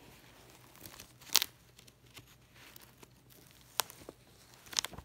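Pages of an old book being turned: dry paper rustling in a few short, sharp crackles, the loudest about a second and a half in, others near four and five seconds.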